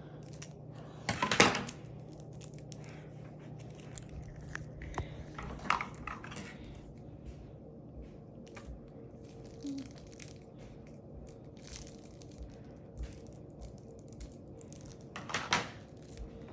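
Playing cards and card-game packaging being handled: scattered light clicks and taps, with brief rustling bursts about a second in, midway, and loudest near the end, over a steady low room hum.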